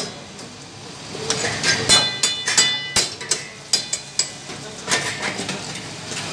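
Metal ladle clanking and scraping against a steel karahi wok as lamb and tomatoes are stirred over the flame. The knocks are sharp and irregular, some ringing briefly, after a quieter second near the start.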